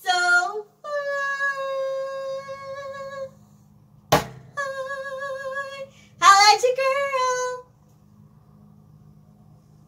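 A young woman's voice singing out a sign-off in long, held high notes: two drawn-out notes, then a phrase that bends up and down, with one sharp hit about four seconds in. After about eight seconds only a faint low hum is left.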